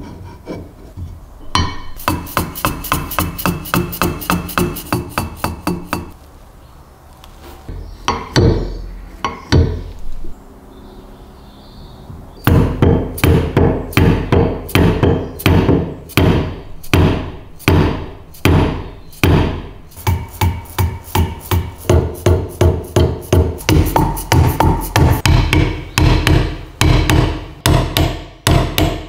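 A hammer striking a steel pin punch, driving a pin into the metal frame of a heavy stapler. A run of quick light taps comes first. After a pause, heavy, evenly spaced strikes follow at about two a second.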